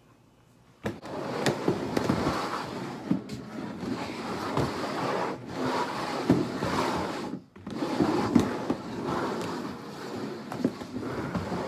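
Dense crinkling and rustling handling noise with scattered light knocks, starting about a second in and breaking off briefly twice: hands at work around the plastic bowl covers on the table.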